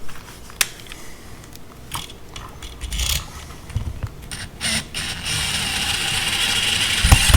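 Small clicks and scrapes of hands working with wire and parts, then about five seconds in a cordless drill/driver starts running with a steady whir and a wavering high whine.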